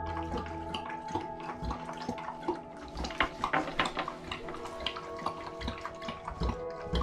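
Dog lapping water from a stainless steel bowl: quick, irregular wet laps, busiest in the middle.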